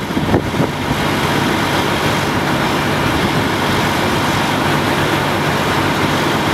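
Diesel engine of the Menck M154 cable crane running steadily, with a couple of short knocks in the first half-second.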